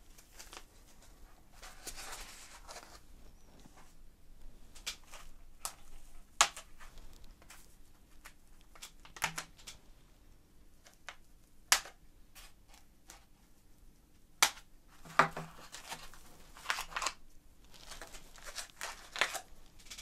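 Handling noise from unpacking a motherboard from its black foam padding: scattered sharp clicks and taps as the board and foam are handled, with short bouts of foam rustling and scraping.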